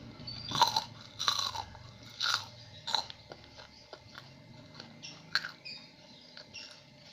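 Close-up chewing of crisp fried food, with four loud crunches in the first three seconds, then softer crackles.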